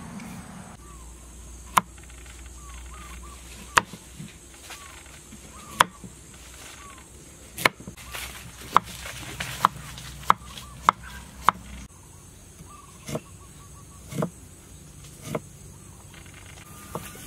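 Cleaver chopping carrot on a wooden chopping board. Sharp single knocks come about every two seconds, then quicken to more than one a second, and a few softer, duller knocks follow near the end.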